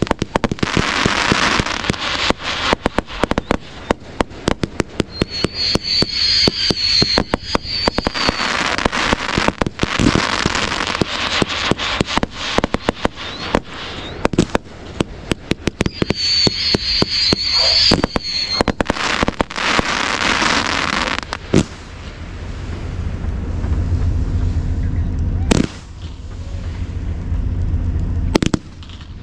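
Fireworks display: a rapid, dense run of pops and crackling bursts, with a high hiss rising over it three times. Near the end the crackle thins to a low rumble broken by two loud single bangs.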